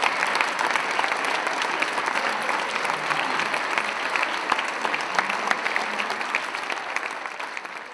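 A theatre audience applauding: dense, steady clapping of many hands that begins to fade near the end.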